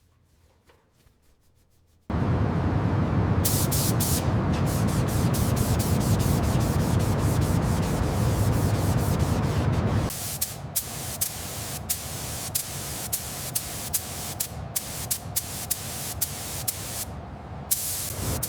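A hissing spray jet starts about two seconds in and runs loud and heavy until about ten seconds in, then continues lighter with many sharp ticks.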